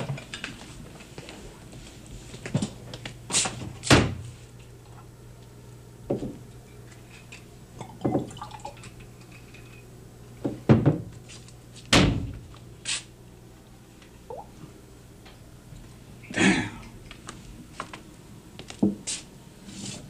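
Scattered knocks and thuds of objects being handled and set down in a kitchen, about a dozen short hits at uneven intervals, over a steady low hum.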